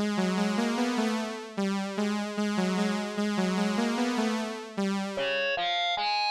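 Synthesized electronic music: a looping melody over a steady bass line, changing near the end to a sparser run of short, plain notes.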